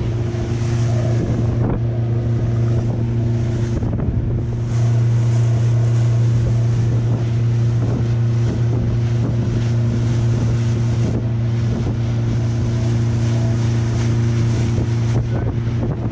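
Small motorboat's engine running steadily under way, a constant low hum, with wind buffeting the microphone. The engine gets a little louder about five seconds in.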